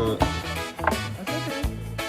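Upbeat background music with a steady beat and bass line.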